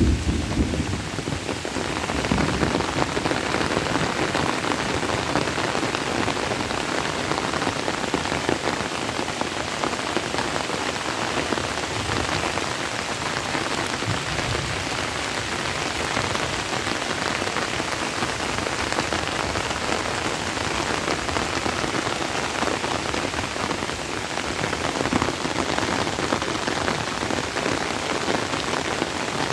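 Steady summer rain pattering on tree leaves and grass, a dense even hiss that swells a little about two seconds in and again near the end.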